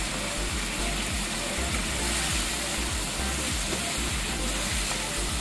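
Chicken livers and gizzards in a spiced sweet-soy sauce simmering and bubbling steadily in a frying pan, with a spatula stirring through them.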